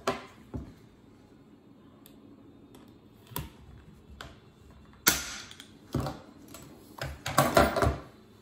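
Hand pop-rivet tool being squeezed to rivet pouch-cell tabs to a connector board: scattered clicks, a loud sharp snap about five seconds in, then a quick cluster of loud knocks and clatter near the end.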